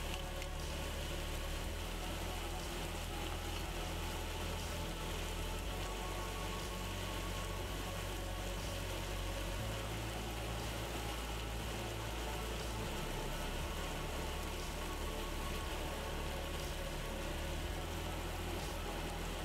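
Beef steaks sizzling steadily in an oiled cast-iron grill pan.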